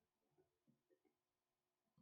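Near silence, with a few faint, short taps in the first second.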